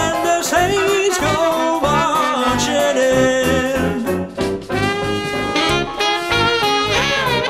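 Upbeat jazzy song over a backing track with a steady beat: a male voice sings, then an alto saxophone takes up the melody partway through.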